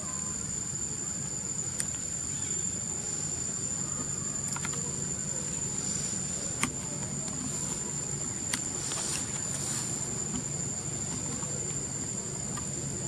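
Steady high-pitched insect chorus, a continuous thin whine with fainter higher tones above it. A few sharp clicks stand out, the loudest a little past halfway.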